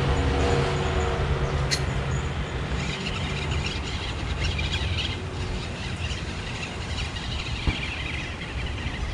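A motor vehicle's engine hums low and steady, then fades away after about three and a half seconds, over a constant outdoor hiss with birds chirping. A single sharp click comes about two seconds in, and a short knock comes near the end.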